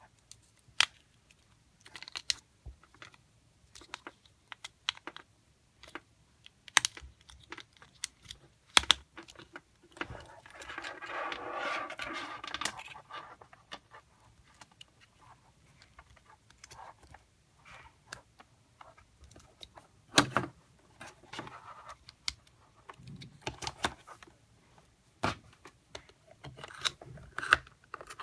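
Scattered clicks and taps of hands handling small hard plastic parts, with a rustle of about two seconds near the middle. No alarm tone sounds.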